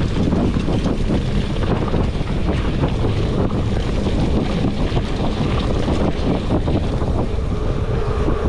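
Wind buffeting the microphone of a camera on a mountain bike ridden fast over a rough dirt and gravel trail, with steady tyre rumble and many small rattles and knocks from the bike over the rough ground.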